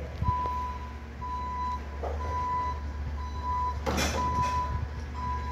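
A garbage truck's reverse alarm beeping about once a second, one steady tone, over the low hum of its diesel engine as it backs up. A short hiss sounds about four seconds in.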